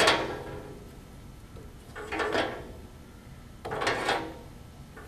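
Drive belts being pulled off the pulleys of the planer's bottom cutter head: three short scraping, rubbing pulls about two seconds apart.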